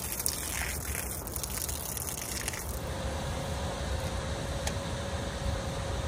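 Pressure cooker venting steam in a loud hiss that cuts off about three seconds in, leaving a faint steady tone.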